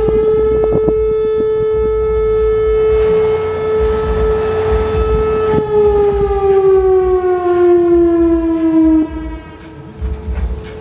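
Whelen Vortex R4 tornado siren sounding a single steady tone at full pitch, then winding down, its pitch gliding lower until it dies away near the end. The rotator is broken, so the siren does not turn and the tone holds steady instead of swelling and fading.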